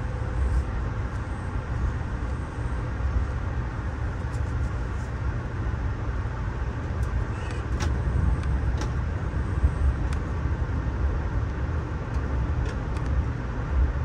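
Steady low rumble of a Budd Amfleet passenger coach running at speed, heard from inside the car, with a few light clicks and rattles now and then.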